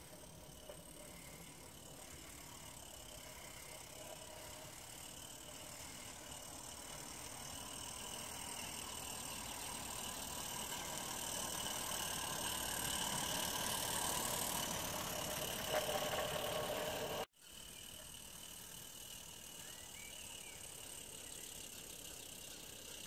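Regner Vincent live-steam garden-railway locomotive running with a goods train: rapid steam chuffing and the rattle of small wheels on the track, growing steadily louder as it approaches. The sound cuts off suddenly about 17 seconds in and resumes quieter and more distant.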